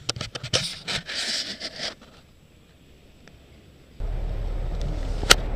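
Close scraping and rubbing with irregular clicks for about two seconds, like the microphone being handled. After a short lull, a steady low rumble starts suddenly, with one sharp click near the end.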